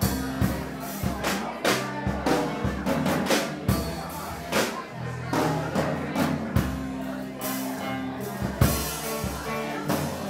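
Live blues band of electric guitar, bass guitar and drum kit playing a song, with frequent sharp drum hits and cymbal crashes over sustained bass and guitar notes.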